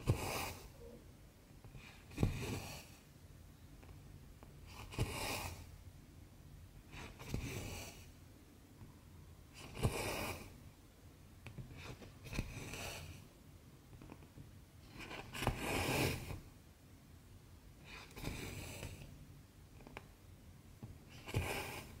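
Cotton embroidery thread being drawn through cross-stitch fabric, stitch after stitch: a short rasping swish about every two and a half seconds, several of them starting with a light click of the needle.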